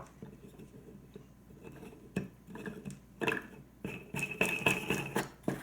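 Small clicks, taps and scraping of hard plastic and metal as the acrylic window is screwed back onto the underwater camera enclosure, getting busier near the end, with a thin high squeak about four seconds in.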